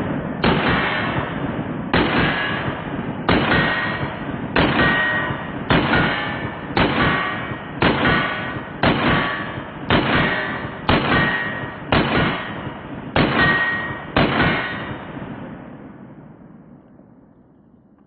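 Glock pistol shots at steel targets, slow fire at roughly one shot a second with slightly uneven spacing, each shot followed by a ringing clang from the steel. The sound fades out over the last few seconds.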